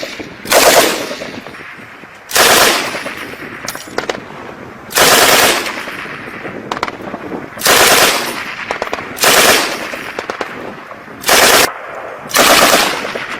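M240B 7.62 mm machine gun firing seven short bursts of about half a second each, each fading out in a trailing echo.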